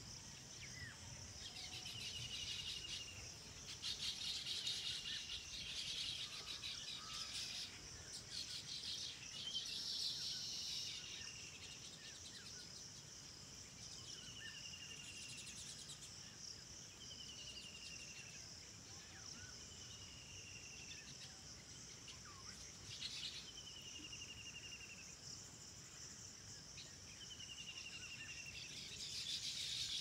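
Outdoor birdsong: a short, falling trilled phrase repeated about every three seconds, with scattered chirps from other birds, over a steady high drone of insects.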